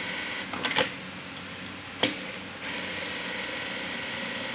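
Industrial single-needle lockstitch sewing machine running and stitching fabric with a steady mechanical hum, broken by several sharp clicks; the loudest click comes about two seconds in, after which the machine runs more quietly for a moment before its hum picks up again.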